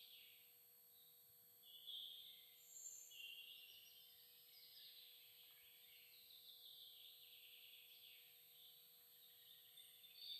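Faint bird song: short high-pitched warbling phrases from a few birds, a little louder about two and three seconds in and again near the end.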